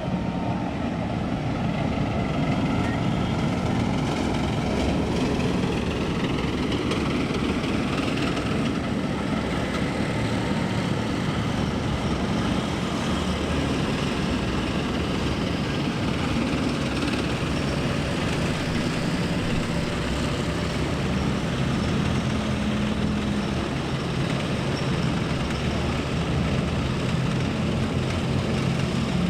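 Heavy engine of a tank driving past on a road, a steady low running drone with a wash of road and track noise.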